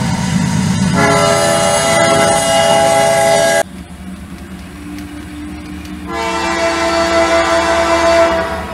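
HO scale model diesel locomotive sound: a multi-note horn sounding over a low engine rumble. The horn cuts off abruptly about three and a half seconds in, leaving a quieter low tone, and sounds again for about two seconds near the end.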